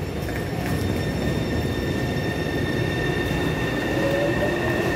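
Taipei Metro C301 electric train pulling out of an underground platform: a steady rumble with high steady whining tones, and from about four seconds in a whine that rises in pitch as the train speeds up.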